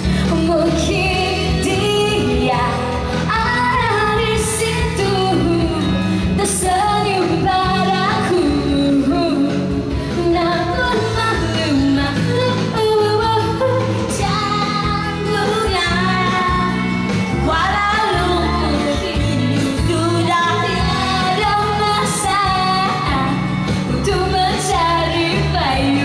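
A woman singing a pop song live into a handheld microphone over a pop accompaniment, amplified through PA speakers, with the music going without a break.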